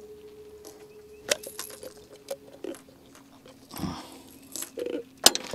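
Scattered clicks, taps and rustles of hands and tackle unhooking a freshly caught catfish, two sharp clicks standing out. A faint steady hum runs underneath and drops in pitch partway through.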